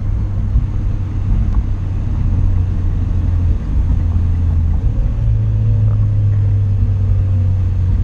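Steady low engine and road rumble inside the cabin of a Mitsubishi Lancer Evolution rolling at slow pace, growing a little stronger about five seconds in.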